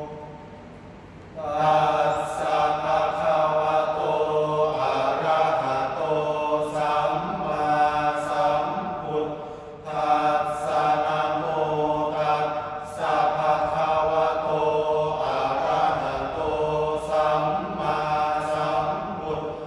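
Five young men chanting Sarabhanya, the melodic Thai Buddhist verse chant, in unison, in long held phrases. A held note fades at the start and the chant picks up again about a second in, with brief breaths between phrases.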